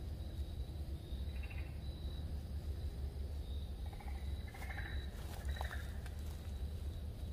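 Faint night chorus of frogs and insects: a thin insect trill that pulses on and off, and a few short frog calls about a second and a half in and again around four to five and a half seconds in, over a steady low rumble.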